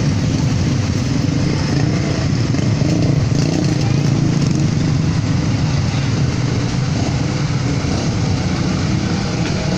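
Commuter electric train running through a level crossing and away down the line, mixed with motorcycle engines idling close by as riders wait at the crossing.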